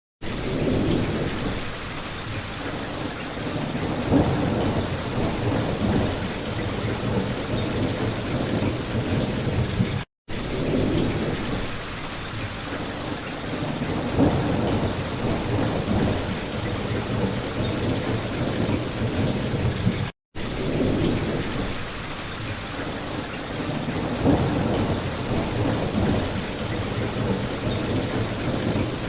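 Steady heavy rain with deep rolling thunder rumbling underneath, starting abruptly and cutting out for a split second twice.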